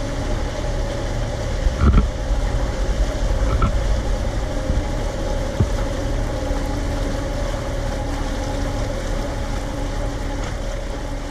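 An engine running steadily with a low hum and a held tone, with a knock about two seconds in and a lighter one a few seconds later.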